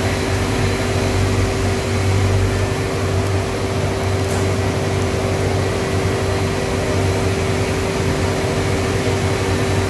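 Hot-air furnace and its industrial blower fans running: a steady rushing noise with a constant low hum and a steady mid-pitched tone.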